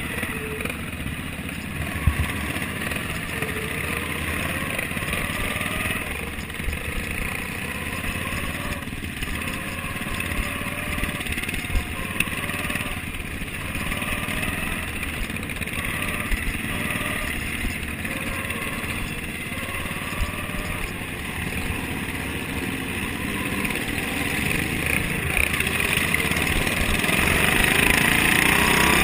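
Racing lawn mower's Briggs & Stratton Vanguard engine running hard, heard from on board. Its pitch rises and falls over and over every second or two, with a few sharp knocks, and it grows louder and climbs near the end.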